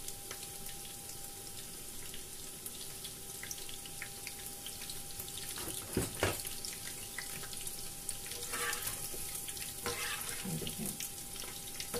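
Coated chicken pieces sizzling and crackling as they fry in hot oil in a frying pan, with two knocks about six seconds in.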